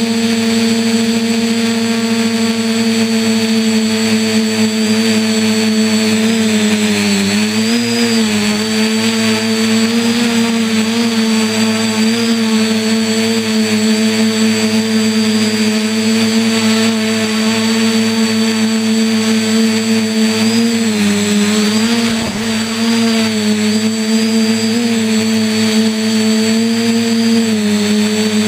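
RC quadcopter's electric motors and propellers buzzing, heard from the camera mounted on the craft: a loud, steady hum whose pitch dips and recovers a few times as the throttle changes.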